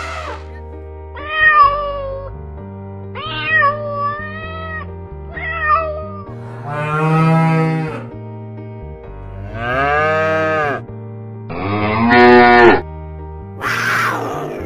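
Cow mooing three times in long, low, drawn-out calls over steady background music. Before them come three short, high, wavering cries, and near the end a brief harsh noisy call.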